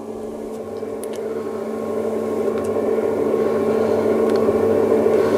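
Electric motor of a Kauber Red Label motorised tensioned projection screen running as it lowers the screen fabric: a steady hum with a few fixed pitched tones, growing gradually louder.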